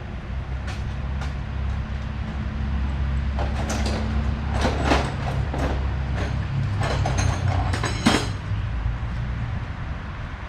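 Ratchet and socket extension clinking and rattling against metal in short bursts while a coil is worked loose, over a steady low mechanical hum.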